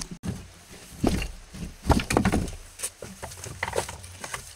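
Footsteps crunching through dry leaf litter and scuffing over loose rock slabs, in an irregular run of steps.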